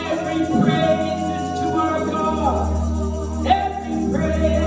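Gospel music: singing voices over instrumental accompaniment with a steady bass line.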